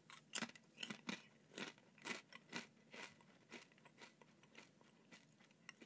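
A person biting and chewing a crunchy, cracker-like chip made from vegetable pulp. The chip gives crisp crunches about twice a second that grow fainter toward the end.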